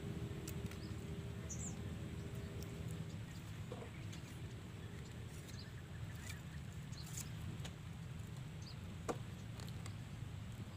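Outdoor ambience: a steady low rumble with scattered short bird chirps and faint clicks.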